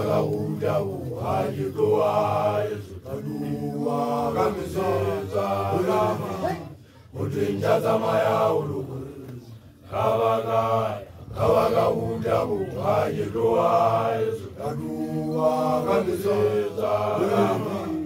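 A group of newly initiated Basotho young men (makoloane) chanting a song together in low voices, in phrases a few seconds long broken by short pauses.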